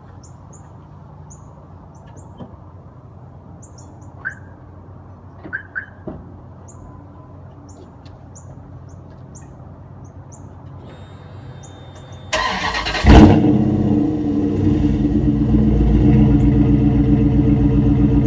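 Quiet at first with short bird chirps and a few clicks. About twelve seconds in, the 2004 Dodge Ram's 5.7L Hemi V8 cranks and fires with a loud burst on a cold start, then settles into a steady, fast cold idle through a Gibson exhaust dumped just behind the rear axle.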